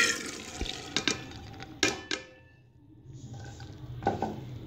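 Soaked chana dal (split chickpeas) tipped from a bowl into a steel cooking pot, with several sharp clinks of metal on metal about a second or two in. A low steady hum follows near the end.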